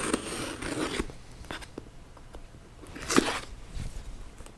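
Knife blade slitting the packing tape on a cardboard shipping box: a scratchy rasp in the first second and a louder, short rip about three seconds in, with a few light clicks of the blade against the box.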